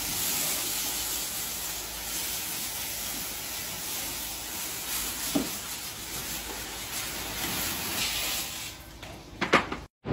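Water hissing from a spray hose as the milking parlour equipment and stalls are washed down. Near the end come a couple of short knocks, and then the sound cuts off.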